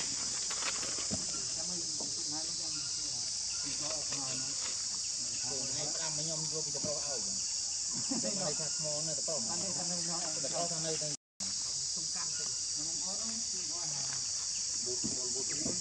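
A steady, shrill insect chorus drones high and without a break, cutting out for an instant about eleven seconds in.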